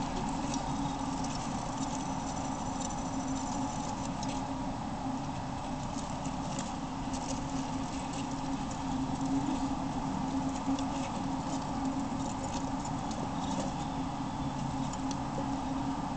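Roborovski dwarf hamsters scurrying and scratching about in wood-shaving bedding: scattered small rustles and clicks over a steady low hum.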